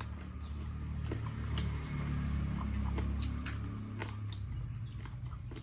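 Close-miked eating: wet, squishy chewing of food with scattered small clicks, over a low steady hum.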